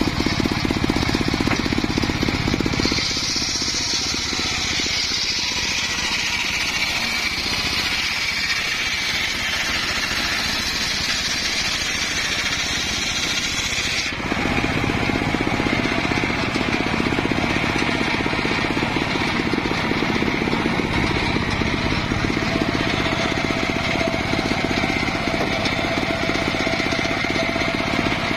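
Homemade belt-driven circular sawmill running and ripping a log lengthwise: the blade cutting steadily through the wood over the drive's mechanical running. About halfway through, the sound changes abruptly from a high hiss to a heavier low rumble.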